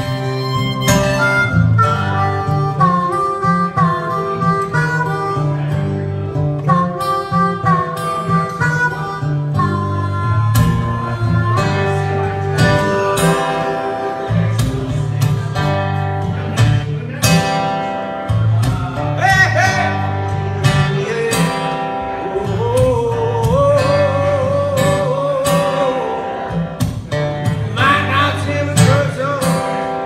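Blues harmonica solo over a strummed Eastman E10OM acoustic guitar, the harmonica bending and wavering its held notes while the guitar keeps a steady rhythm.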